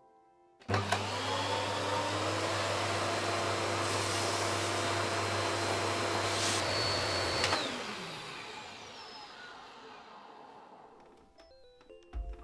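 Electrolux 850E canister vacuum cleaner switched on, its motor spinning up with a rising whine to a steady run with a loud rush of air. About seven seconds in it is switched off, and the motor winds down with a falling tone, fading over several seconds.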